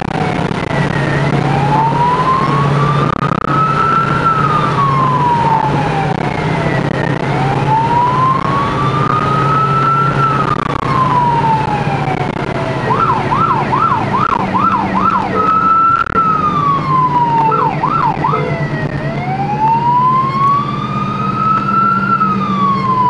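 Police car siren heard from inside the car, a slow wail rising and falling about every six seconds; a little past halfway it switches to a fast yelp of two or three warbles a second, holds one tone briefly, yelps again, then goes back to the wail near the end. The car's engine hums steadily underneath.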